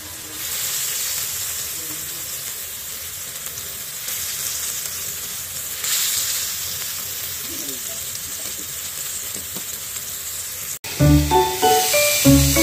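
Beef steak sizzling steadily in hot fat on an electric grill pan, swelling briefly about six seconds in. About eleven seconds in the sound cuts abruptly to background music with a beat.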